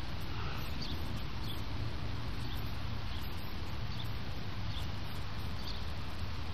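Steady outdoor background noise with a low rumble, and faint short high chirps of birds every second or so.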